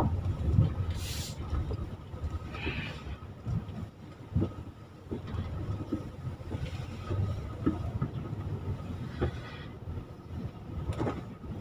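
Cabin noise of a van being driven slowly: a steady low road and engine rumble, with scattered light knocks and bumps and a brief rustle about a second in.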